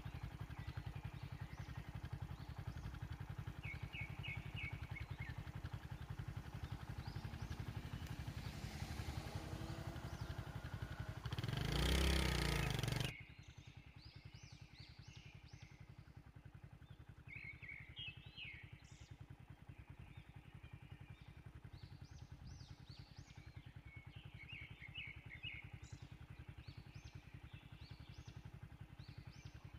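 Motor vehicle engine idling with a steady low rumble that swells louder for about a second and a half and cuts off suddenly about thirteen seconds in. After that, birds chirp in short repeated bursts over a quiet background.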